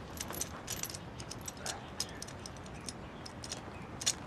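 Metal chain links clinking and jangling in light, irregular clicks, with a louder clink near the end.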